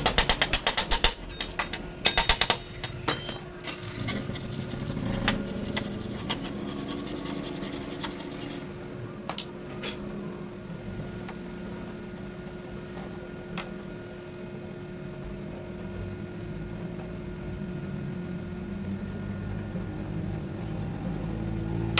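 Metal tool parts handled on a steel workbench: a quick run of about a dozen sharp metallic clicks in the first second, another shorter run about two seconds in, then faint rubbing and scraping with a few light ticks over a low steady hum.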